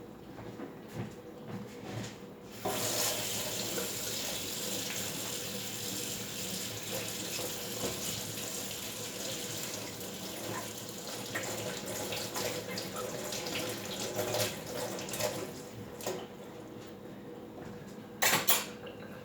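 Water running from a kitchen tap into a sink. It comes on suddenly about three seconds in and runs steadily until it eases off a few seconds before the end. A short, louder clatter follows near the end.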